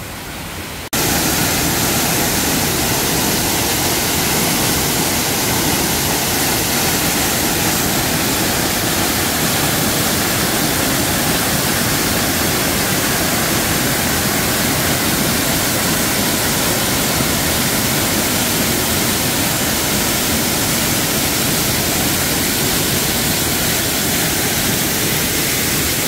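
Waterfall pouring down over rock: a loud, steady rush of falling water that starts abruptly about a second in.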